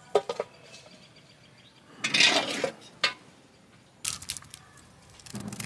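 Stainless-steel lid and kadai clinking and scraping against each other as the lid is handled and lifted off the pot: a couple of sharp clinks at the start, a short scrape about two seconds in, and a quick run of metal clatter near the end.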